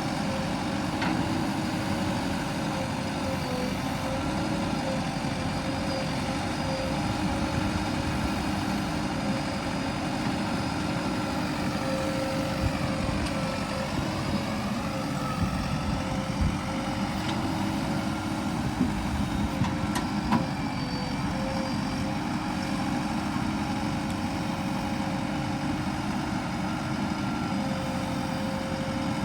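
Heavy diesel engine of a truck or earthmoving machine running steadily at low revs, with a few short knocks partway through.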